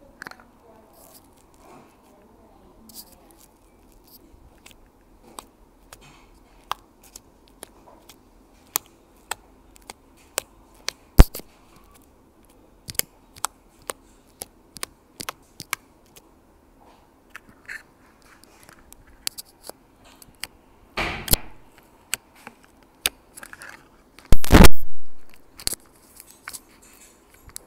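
Crunchy slime being poked and pressed by fingers, giving irregular sharp crackles and pops. A longer crunch comes about 21 seconds in, and the loudest, longest one about 24 seconds in.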